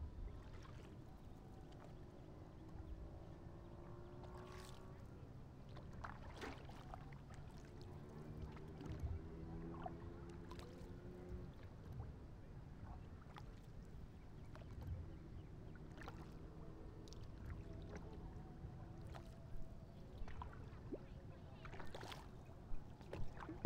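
Paddle strokes in the water beside a stand-up paddleboard: quiet splashes and drips, with a few sharp taps scattered through.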